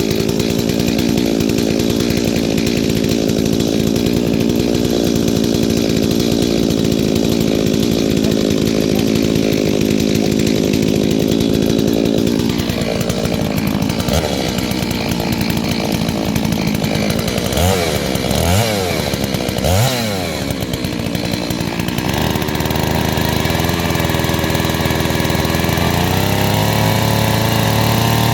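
New Holzfforma G388 72cc two-stroke chainsaw, being run in, held at high revs while cutting wood for about twelve seconds. The revs then drop, the throttle is blipped up and down a few times, and the engine settles lower before revving up again near the end.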